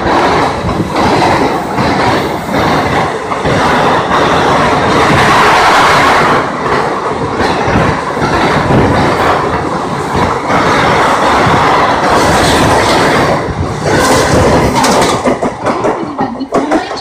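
Indian Railways passenger coaches running past close by, wheels clattering over rail joints in a steady clickety-clack. The sound drops away near the end as the last coach passes and recedes.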